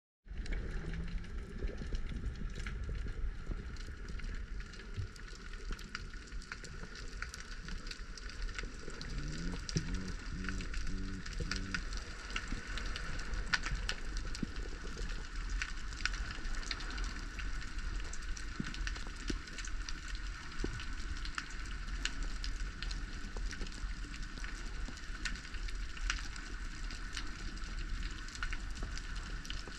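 Underwater sea ambience through a camera housing: a dense, steady crackle of tiny clicks over a low rumble. About nine to twelve seconds in, a short pulsing low tone comes and goes.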